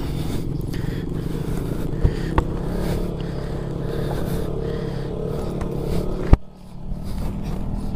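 KTM RC motorcycle engine running while the bike rides over a rough, rocky dirt track. Sharp knocks come from the bike jolting over stones: two close together about two seconds in, and a louder one a little past six seconds, after which the engine noise briefly drops.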